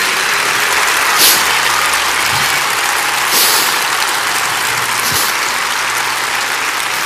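Large audience applauding steadily, with a few brief louder cheers rising out of it.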